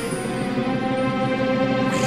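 Background music of held, sustained notes.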